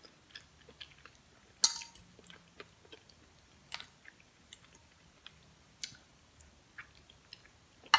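Eating sounds: a metal spoon clinks and scrapes against a glass baking dish as food is scooped, the sharpest clink about a second and a half in, with soft, scattered clicks of chewing.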